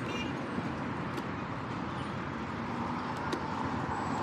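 Steady traffic noise and wind rush heard from a helmet-mounted camera while riding an electric scooter along a city road, with a couple of faint clicks.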